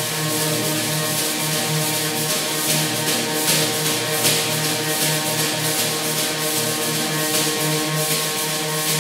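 Ambient live music: an electric guitar through effects pedals holds a steady, sustained drone of several tones. Over it, a snare drum head is rubbed and scraped in quick irregular strokes, a dense hiss with no clear beat.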